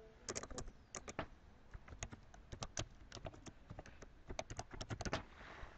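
Typing on a computer keyboard: an irregular run of quick key clicks as a short phrase is typed in.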